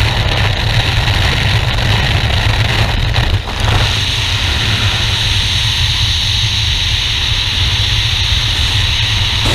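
Loud, steady wind noise buffeting a camera microphone, first in the open door of a Utva 66 light aircraft with its engine running, then the rush of skydiving freefall. A short dip about three and a half seconds in marks the exit from the aircraft.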